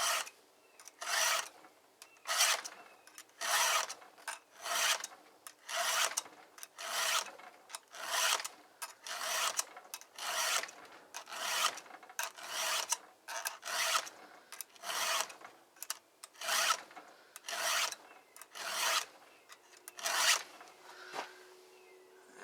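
Round file being pushed by hand across a chainsaw chain's cutter tooth to sharpen a dull chain, a rasping scrape about once a second, steady and even, stopping shortly before the end.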